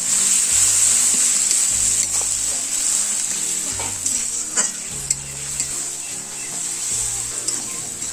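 Chopped onions and garlic paste sizzling in mustard oil in a kadai while being stirred and fried down, with a steady hiss. A few sharp clicks of the spatula against the pan come about halfway through and again near the end.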